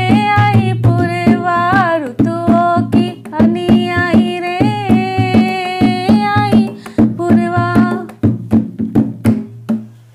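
A woman sings a Hindi devotional bhajan, keeping time on a dholak with a steady beat. Her voice stops about two-thirds of the way through; the dholak strokes then come faster and die away just before the end, closing the song.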